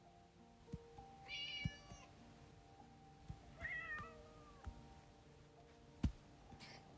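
A cat meowing twice: a short high call about a second in, then a second call that falls in pitch about three and a half seconds in. Several sharp clicks, the loudest near the end, and a faint steady hum underneath.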